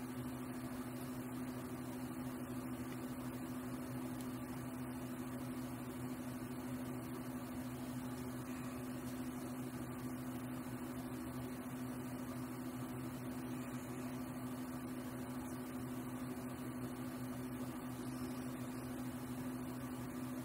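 Steady low machine hum with a constant pitched drone, unchanging throughout.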